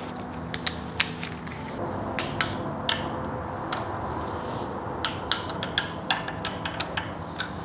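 Torque wrench set low, about 5 Nm, ratcheting with a string of sharp, irregularly spaced clicks as bolts and nuts are snugged down in a first light tightening pass.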